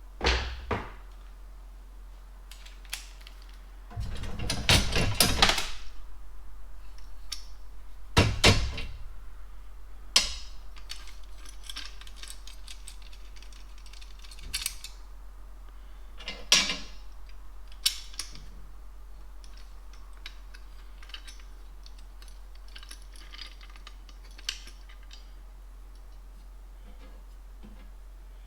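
Small metal tools and hardware being handled: scattered clicks and knocks, with a longer, louder rattle about four to six seconds in and a sharp knock a couple of seconds later.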